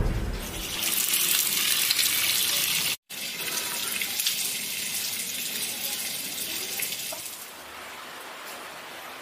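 A low thud dies away at the very start, then water gushes steadily from a wall tap. The sound cuts off abruptly about three seconds in and gives way to water splashing as it is thrown onto a face with the hands, dropping to a low background near the end.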